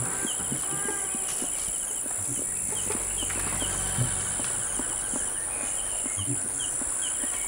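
Tropical forest ambience: a steady high-pitched insect drone with short chirping trills repeating over it. Soft scattered clicks and rustles come from chimpanzees grooming, with one sharper tick about four seconds in.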